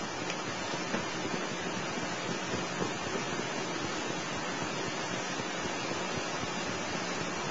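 Steady hiss with no clear event in it: the background noise of the recording, with no speech.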